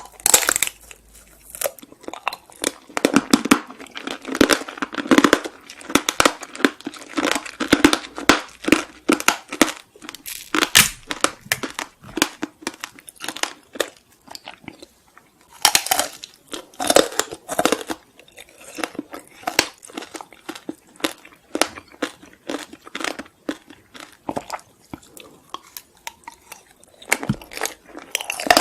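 Close-miked eating of Korean sweets: sharp crunches and chewing in dense runs, loudest in the first third and again about halfway through, with lighter clicking chews in between.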